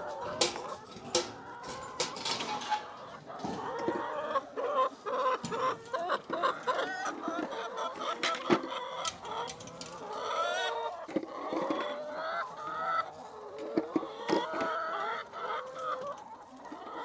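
A flock of laying hens clucking and calling over one another, with a few sharp clicks among the calls.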